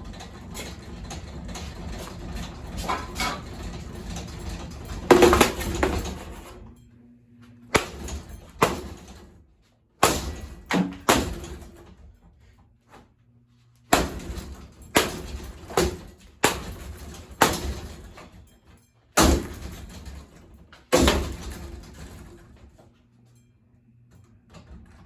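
Ceiling fan being smashed apart while it runs. A rattling, clattering stretch for the first several seconds peaks in a loud crack about five seconds in. Then come a dozen or so separate sharp whacks and crashes of breaking parts, with a faint low motor hum in the gaps between them.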